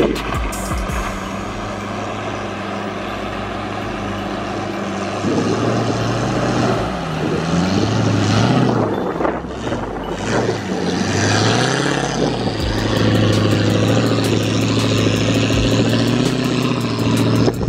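Land Rover Discovery 1's V8 engine pulling the truck through a shallow river crossing, with water splashing around the wheels. It runs steadily at first, the revs rise and fall several times about halfway through, then it holds a steady, higher note.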